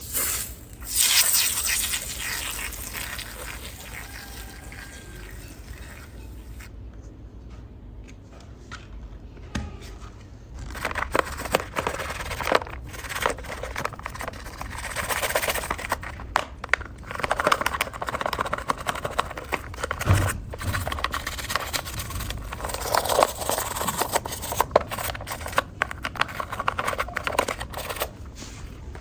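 Close-up scrubbing, scraping and rubbing sounds from hand-cleaning a 1:24 scale model car. There is a short loud burst about a second in, then irregular rubbing with many small clicks from about ten seconds in.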